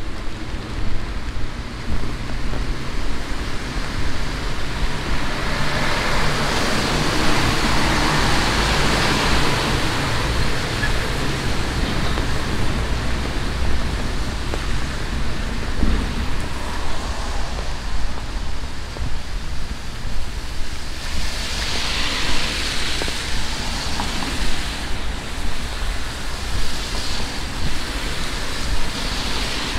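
Heavy tropical rain with a steady hiss. The hiss swells louder twice, about a fifth of the way in and again about two-thirds of the way in, and a low hum sits under it for the first few seconds.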